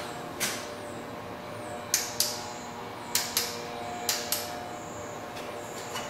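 Sharp clicks: one, then three close pairs about a quarter second apart, over a faint steady hum.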